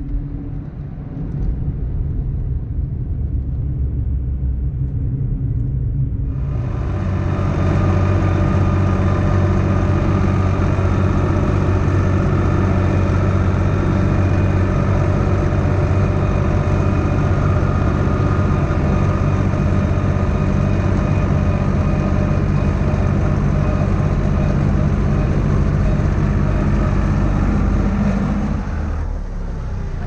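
IHC 633 tractor's diesel engine running steadily as the tractor is driven, with many even engine tones. For the first six seconds or so there is only a duller, lower vehicle rumble; then the fuller engine sound comes in suddenly, and it drops away just before the end.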